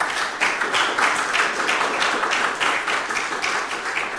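Audience applauding, beginning to die away near the end.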